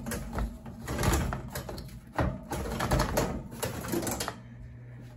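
Irregular clattering and knocking of hard plastic and metal yard equipment being shifted and handled while a gas hedge trimmer is pulled out of a crowded pile, dying down near the end.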